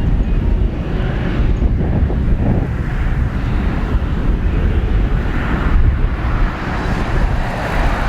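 Airbus A330-243's Rolls-Royce Trent 700 jet engines at takeoff thrust: a steady, loud low rumble as the airliner departs, with wind buffeting the microphone.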